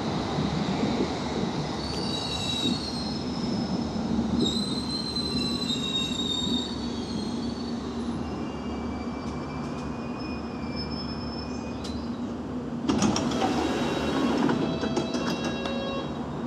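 London Underground S8 Stock train running into the platform and braking to a stop, with high-pitched wheel and brake squeals a couple of seconds in. About thirteen seconds in, a sudden burst of noise with short high tones as the doors open.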